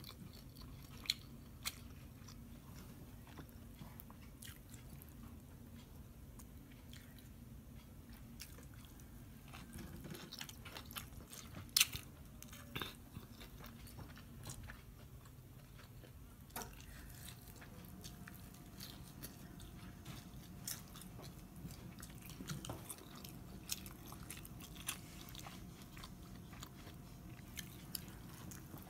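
A person eating barbecued pork rib and long bean salad, heard close up: biting and chewing, with scattered sharp mouth clicks.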